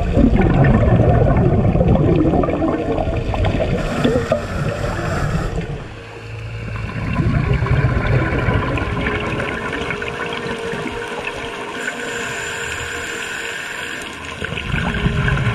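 Scuba diver's regulator underwater: exhaled bubbles gurgling loudly for several seconds, then a steadier hiss with a faint steady hum through the second half, and another bubble surge near the end.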